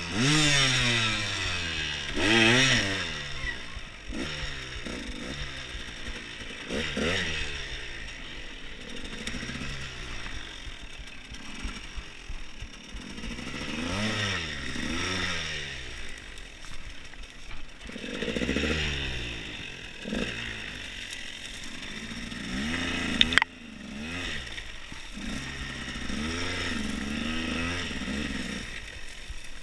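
Dirt bike engine revved up and down again and again in short throttle bursts, the pitch climbing and falling with each one. About three-quarters of the way through there is one sharp, loud knock, and after it the engine runs quieter.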